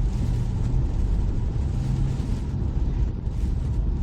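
Toyota car driving at road speed, heard from inside the cabin: a steady low rumble of engine and tyres with a constant low hum.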